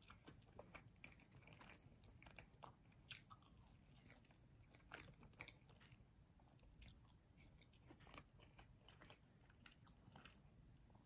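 Faint chewing of pizza close to the microphone: soft, irregular mouth clicks and small crunches, one a little louder about three seconds in.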